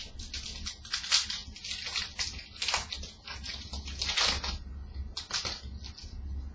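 A hockey-card pack's foil wrapper being torn open and crinkled by hand, in several short rustling bursts.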